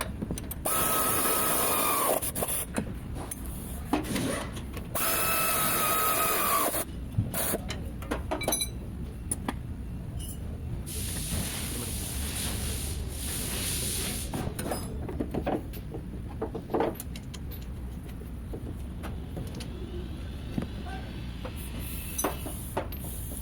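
Air tool running in two short bursts with a steady whine that winds down as each burst ends, then a longer stretch of hissing, with scattered metallic clicks and clinks of tools being handled.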